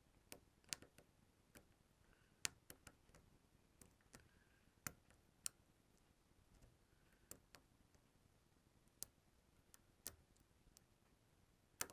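Faint, irregular metallic clicks and ticks of a lock-pick hook working the pin stack inside a small Squire pin-tumbler padlock, with a few sharper clicks standing out.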